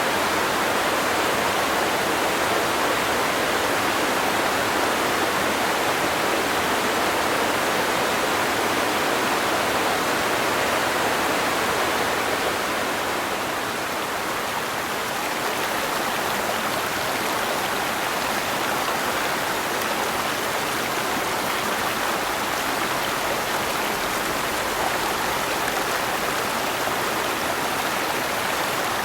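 Creek water rushing and tumbling over rocks in a steady, even roar, with small waterfalls in the flow.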